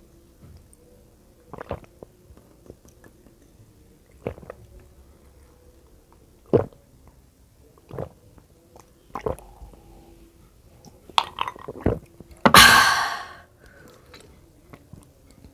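Close-miked gulping swallows of iced tea from a glass, one every second or two, then a loud breathy exhale about twelve and a half seconds in.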